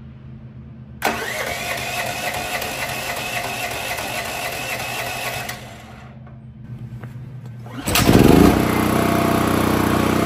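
Duromax XP13000HX generator's electric starter cranking the cold engine for about four and a half seconds without it firing. About two seconds later the engine catches with a loud burst and settles into steady running.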